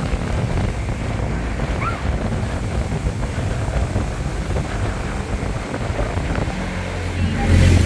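Wind buffeting the microphone of a moving car, over engine and road noise. Near the end a steady engine hum grows louder.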